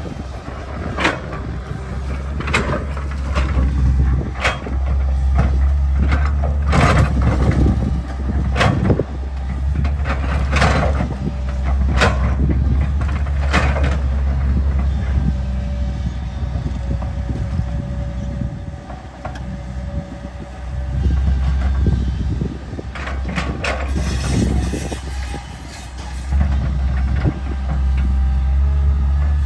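Komatsu PC200 hydraulic excavator digging: its diesel engine runs steadily while the steel bucket scrapes and clanks against rock and hard soil in repeated sharp knocks, thick in the first half, fewer in the middle, and picking up again near the end.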